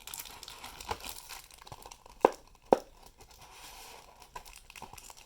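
Crinkling and tearing of the plastic wrap and cardboard packaging of a trading-card booster box being opened by hand, with two sharp taps about half a second apart a little after two seconds in.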